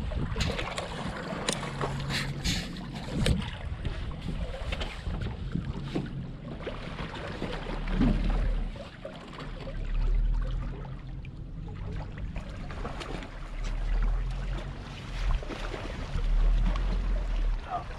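Wind buffeting the microphone in gusts over a faint, steady low hum, with several sharp knocks in the first few seconds.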